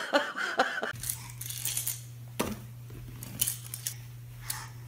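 A baby handling an empty plastic water bottle on carpet: a few sharp plastic clicks and crackles over a low steady hum.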